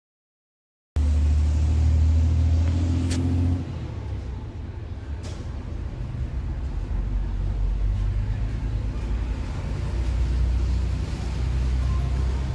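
Subwoofer driven by a homemade six-transistor bass amplifier playing deep, held bass notes, a loud low rumble with some hiss. It starts about a second in, after a short silence.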